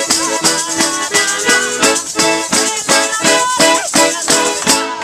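Live band playing an instrumental passage with a fast, steady beat of sharp percussion over guitar and keyboard lines, stopping abruptly just before the end.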